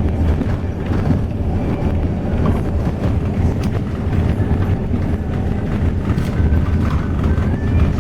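Steady rumble of a highway coach's engine and tyres on the road, heard from inside the moving bus.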